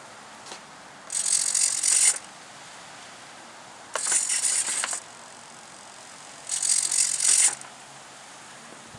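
Retractable landing gear and gear-door servos of a twin-EDF foam model jet running, in three separate mechanical buzzes of about a second each as the gear cycles.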